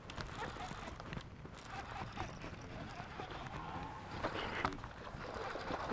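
Rustling and a few sharp knocks of a handheld camera being handled.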